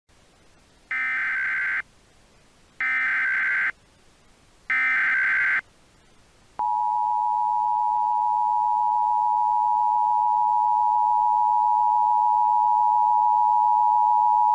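Emergency Alert System tones: the SAME header plays as three short data bursts about two seconds apart, followed by the EAS two-tone attention signal, a steady dual tone held for about eight seconds.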